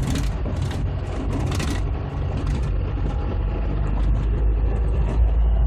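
A car driving slowly on a gravel road, heard from inside the cabin: a steady low rumble of engine and tyres, with a few sharp crackles of gravel under the tyres in the first two seconds.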